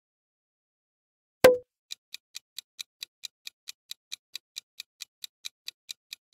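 A single sharp hit with a brief ring about a second and a half in, then a quiz countdown timer ticking like a clock, about four and a half ticks a second.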